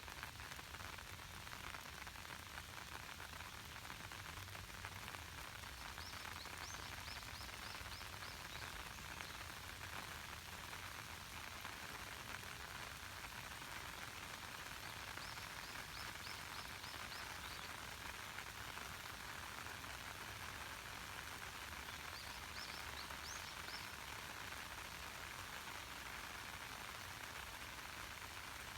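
Steady light rain falling on lake water, a soft even hiss of drops. Three times a bird gives a short run of rapid high chirps.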